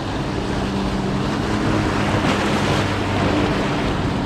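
A jet ski's engine running steadily out on the water, a low hum under wind and surf.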